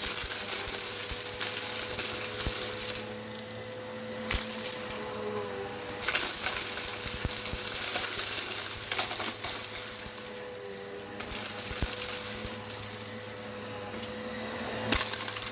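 Eureka PowerSpeed upright vacuum running with a steady motor hum, while hard rock salt and lentils crackle and rattle as they are sucked up. The sound dips and swells several times.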